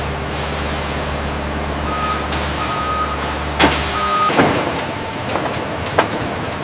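A vehicle engine running with a low rumble while a reversing beeper sounds three short beeps, then the engine sound drops away about four seconds in, followed by a few sharp knocks.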